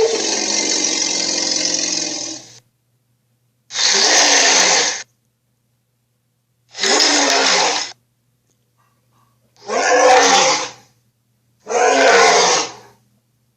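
Sharptooth tyrannosaur roar sound effects: a long rough roar ending about two and a half seconds in, then four shorter roars of about a second each, separated by silence.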